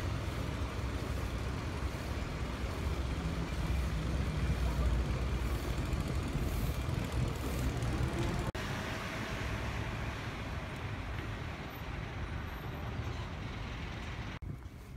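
Street traffic noise with the low rumble of a large vehicle's engine running, heaviest in the first half. The sound drops abruptly about halfway through and again near the end.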